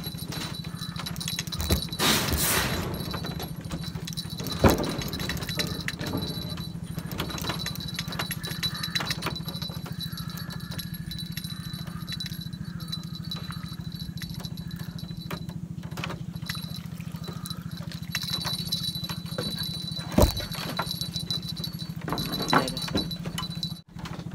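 Fishing reel and tackle rattling and ticking as a hooked fish is reeled in and netted, with a few sharp knocks and a steady low hum underneath.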